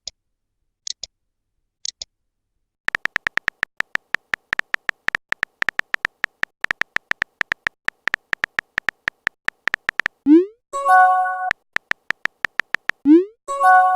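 Synthesized electronic sound effects: a few short high beeps about once a second, then a rapid, even train of short pitched blips, several a second, like a text-scroll sound. The train is broken twice by a rising swoop and a short held electronic chord.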